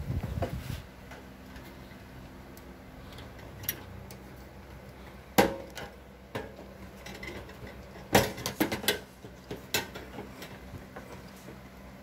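Sharp clicks and knocks of hard parts being handled inside a gas water heater, loudest about five seconds in, with a quick cluster of them from about eight to ten seconds. A brief low rumble of handling noise at the start.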